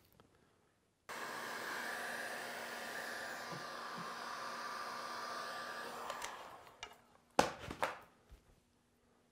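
Electric heat gun blowing steadily, heating a wooden bow limb to bend it into alignment. It starts about a second in, then switches off and winds down after about five seconds. Two sharp knocks follow near the end.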